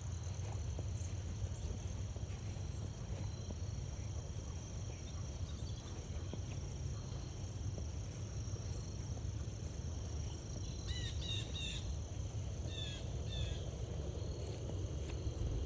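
Crickets trilling steadily in a high, even tone over a low, steady rumble. A bird gives a few short chirps twice, about eleven and thirteen seconds in.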